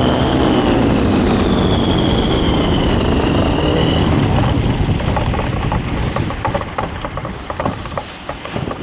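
An engine runs loudly with a high whine that wavers in pitch, then fades away over the second half, with a few sharp clicks near the end.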